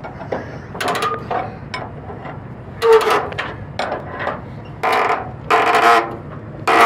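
Ratchet tie-down being cranked to tighten a strap securing a car on a car-hauler trailer: five or so short ratcheting strokes, a second or two apart.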